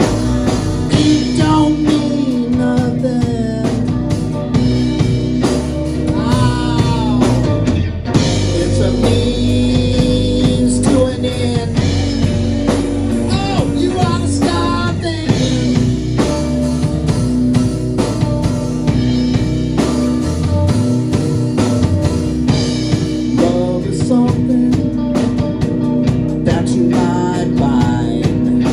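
A live blues-rock trio playing: electric guitar with bent notes over electric bass and a drum kit, at a steady, loud level.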